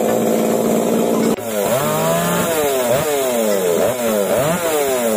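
Two-stroke chainsaw engine running at a steady speed, then revved over and over, its pitch jumping up and sliding back down about twice a second.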